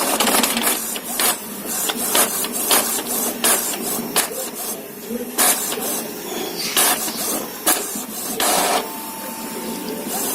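Epson L380 inkjet printer running a black-and-white copy: its mechanism makes a quick, irregular series of short mechanical strokes as it prints, with a faint steady tone coming in near the end.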